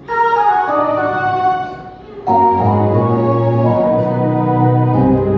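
Keyboard music playing sustained chords; one chord fades out and a new, louder chord comes in about two seconds in.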